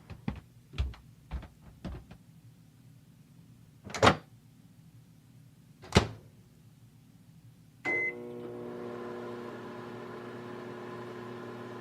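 Microwave oven: a few soft thumps, then two sharp knocks about two seconds apart, a short beep about eight seconds in, and the oven starts running with a steady hum, heating water for tea.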